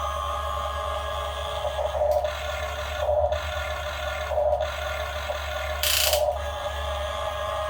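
Radio-controlled model excavator's electric hydraulic pump whining steadily, swelling briefly every second or so as the controls are worked, with a short hiss about six seconds in.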